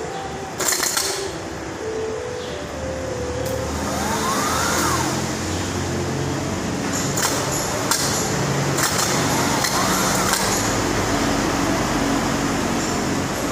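Rebuilt car starter motor being bench-tested off a battery lead: it whirs up and back down twice, with sharp clicks as the lead touches the terminal. A steady loud mechanical hum runs underneath.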